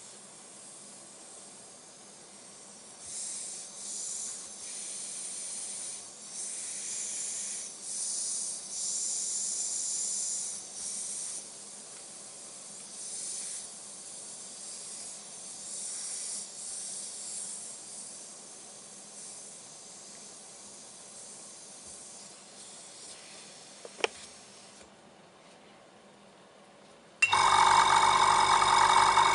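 Compressed air hissing in irregular bursts from a leaking Badger airbrush hose. Near the end there is a click, then the Revell Master Class airbrush compressor's motor starts and runs loudly and steadily.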